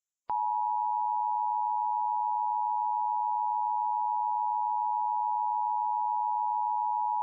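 Emergency Alert System attention signal: a loud, steady electronic alert tone near 1 kHz that starts with a click about a third of a second in and holds unbroken. It is the alert tone that follows the data header and announces an emergency warning message.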